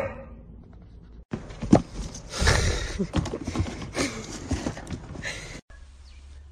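A cat scrambling about inside a plastic storage bin: irregular knocking and scuffing against the plastic that starts about a second in and stops suddenly near the end.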